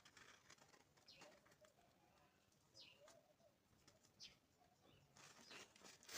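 Near silence, with a few faint short falling chirps from a bird and light rustling and tapping of handling noise.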